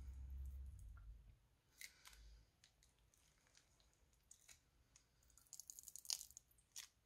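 Faint crackles and clicks of slime being squeezed out of a plastic piping bag, with a denser run of crinkly crackling a little before the end and a low handling rumble in the first second.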